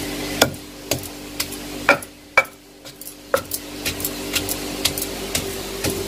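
Pestle pounding spice masala in a stone mortar, about two sharp strikes a second with a brief pause around the middle.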